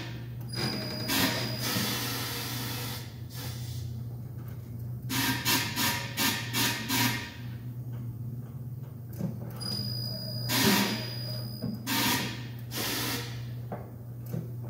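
Tire changer working a low-profile tire onto a 32-inch wheel: a steady low motor hum with repeated short rushing and scraping noises as the tire bead is forced over the rim, including a quick run of four or five about five to seven seconds in.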